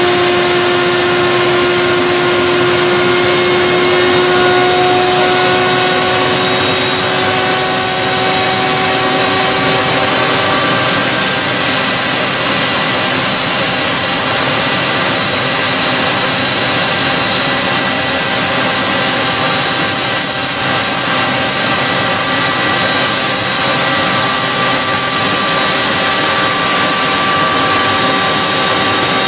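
DIY turbocharger-based gas-turbine jet engine running loud: a steady rush of noise with a high whine, its pitch climbing slightly over the first ten seconds or so as it spools up, then holding steady.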